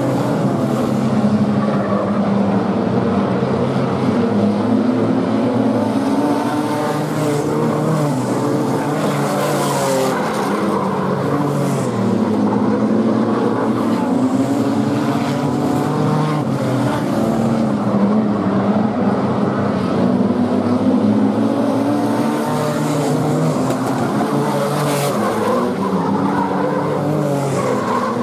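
A pack of wingless sprint car engines running hard together, several at once. Their pitches rise and fall as the cars lift through the turns and accelerate down the straights.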